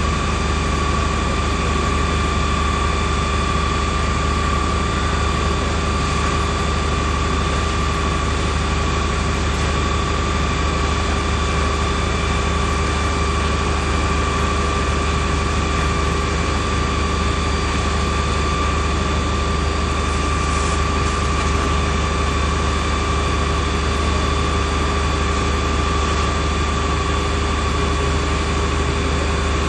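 A steady engine drone with a constant high whine, unchanging throughout.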